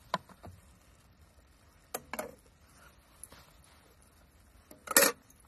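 Stainless-steel camp cookware clinking a few times as a plate, utensils and a pan lid are handled, with the loudest metal clatter about five seconds in.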